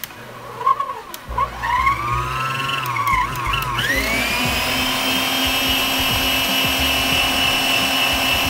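Electric stand mixer's motor whining higher in pitch in steps as its speed dial is turned up. From about halfway through it holds at a steady high-speed whir while the wire whisk whips boiled icing.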